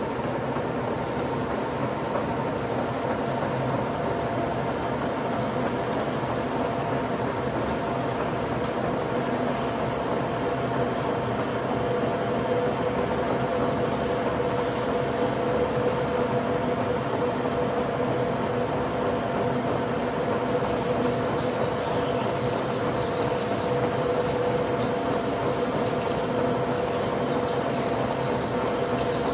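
Turret lathe running steadily with an aluminium blank turning in its chuck: an even machine hum with a few steady tones over a hiss, a little louder from about halfway.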